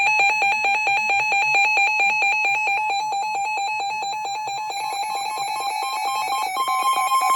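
Emergency Alert System attention tone: a steady, loud, high-pitched alarm tone with a rapid pulsing, joined by a second set of alert tones about five seconds in.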